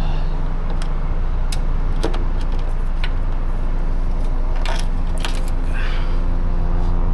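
Car engine idling steadily, with several sharp clicks and short rattles of plastic trim pieces and clips being handled.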